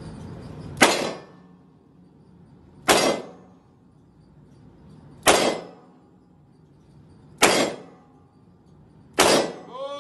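Five revolver shots fired one at a time, about two seconds apart, each a sharp crack with a short echo off the walls of an indoor range.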